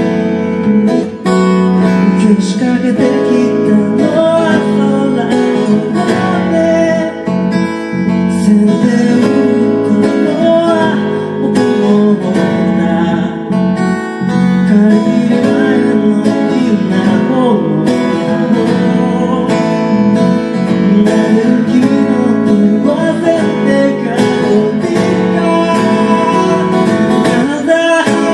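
Live band music led by strummed guitar.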